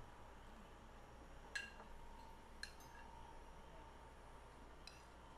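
Metal serving spoon clinking against ceramic bowls and a plate three times, each clink ringing briefly. The loudest comes a little over a second and a half in, the others about a second later and near the end, over near silence.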